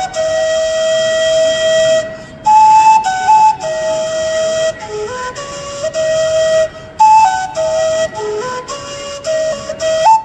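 Handmade, higher-pitched flute playing a melody that mimics bird song: breathy held notes with quick steps and slides between pitches, in short phrases with brief breaks for breath.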